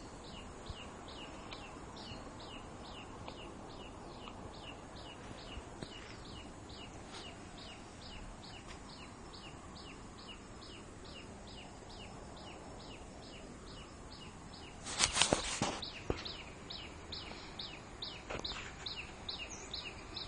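A bird calls over and over, a short falling chirp about twice a second, over steady outdoor background noise. About three-quarters of the way through, a loud noise lasts about a second, followed by a few scattered knocks.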